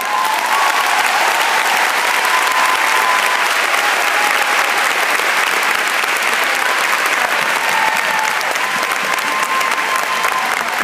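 Large audience applauding, breaking out all at once and holding steady and loud, with a few faint held voices over the clapping.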